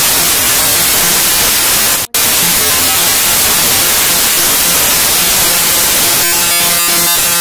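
Loud, steady static hiss like white noise, cutting out for an instant about two seconds in. It is a fault in the recording that drowns out the interview audio, with faint traces of it showing through near the end.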